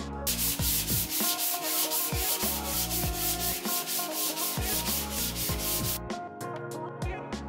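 Sanding on a car's bodywork: a loud, rasping hiss with a fast, even stroke rhythm that starts just after the start and cuts off abruptly about six seconds in, over background music with a steady beat.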